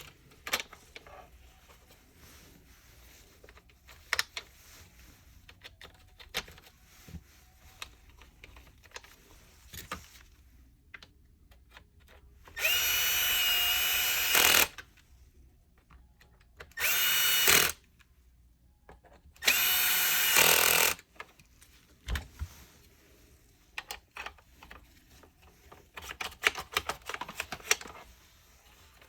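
A small electric motor runs in three short bursts with a steady high whine, each starting and stopping abruptly, the first about 2 seconds long and the next two shorter. Light clicks and taps of parts being handled come before and after.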